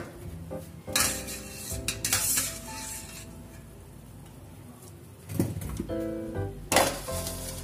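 Stainless steel bowls, colander and pot clinking and knocking as they are handled and set down, several separate clanks, over soft background music.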